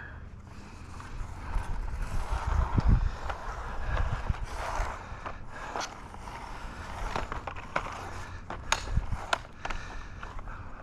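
Footsteps scuffing and crunching across loose, freshly graded dirt while a long reel tape measure is walked out, with a few sharp ticks in the second half.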